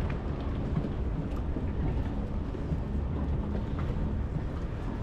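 Steady low rumble and hum of a boat engine running out on the water, under light wind on the microphone.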